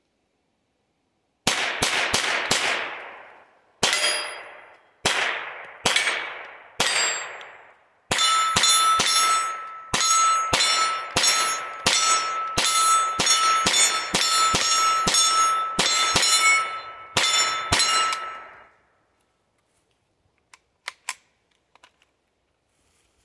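Ruger Charger .22 LR semi-automatic pistol firing: a quick group of about four shots, four spaced single shots, then a fast string of about two dozen shots over some ten seconds. A steady ringing tone runs under the fast string, and a few faint clicks follow near the end.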